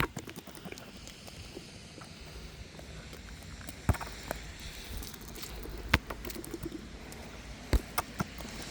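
A handful of short, sharp knocks, the strongest about four, six and eight seconds in, over a steady background hiss that swells a little through the middle.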